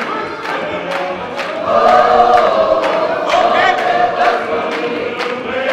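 A congregation singing together in a large hall, with a steady beat of sharp strokes about twice a second under the voices. The singing grows louder about two seconds in.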